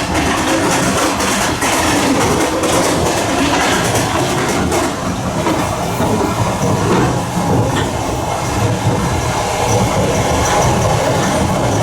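Passenger train carriage running along the track, heard from its vestibule: a steady rumble of the wheels, with clicks as they pass over rail joints, most of them in the first couple of seconds.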